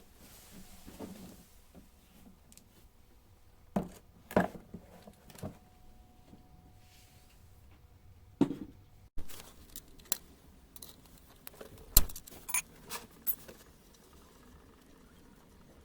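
Irregular sharp clicks and knocks from small objects being handled, a few at a time with pauses between, the loudest about twelve seconds in.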